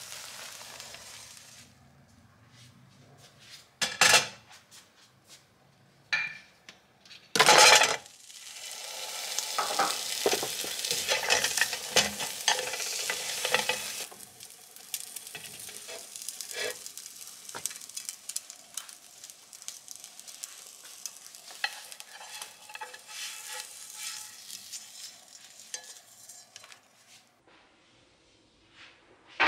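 Imitation crab sticks frying in a nonstick pan and being turned with wooden chopsticks. The sizzle starts about eight seconds in, is loudest for the next few seconds, then fades to a faint crackle. Two loud clatters come before the sizzle starts.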